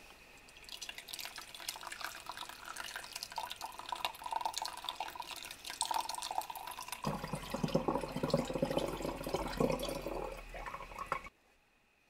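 Coconut milk trickling and dripping as it is squeezed through a cloth nut milk bag into a ceramic mixing bowl, turning into a fuller, heavier stream about seven seconds in that cuts off sharply near the end.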